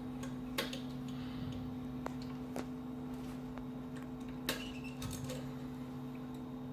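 A few sharp, scattered clicks and taps as a blade cover is fastened on an ultrasonic slitter's cutting head, over a steady low hum.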